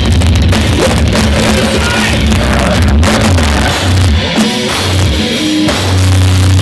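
Heavy metal band playing loud live through the PA, with distorted electric guitars and a drum kit, as heard from the crowd.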